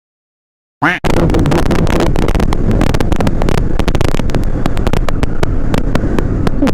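Heavy wind buffeting a BOYA BY-M1 lavalier mic on a moving motorcycle, starting abruptly about a second in after dead silence, full of sharp crackles and with engine and road rumble underneath: the distorted, choppy wind noise this mic setup is being tested for.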